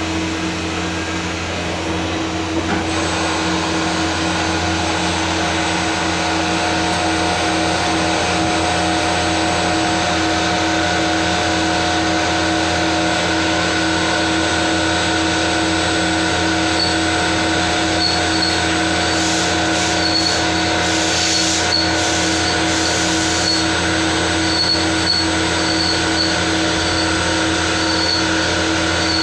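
CNC turn-mill machine running a brass machining job: a steady hum and whine with several held tones over a continuous hiss. A higher tone joins about three seconds in, and short high chirps repeat through the second half.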